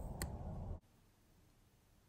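A single light click just after the start over faint room noise, then the sound cuts off abruptly into dead silence.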